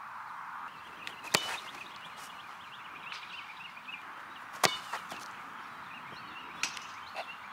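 Soccer ball struck hard with the foot: a sharp thump about a second in and another, louder one a little past four and a half seconds, then a couple of softer knocks near the end, over steady outdoor background hiss.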